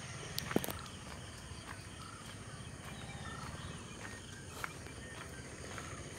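Quiet outdoor ambience: a steady high insect drone with scattered short bird chirps. A few sharp clicks sound about half a second in.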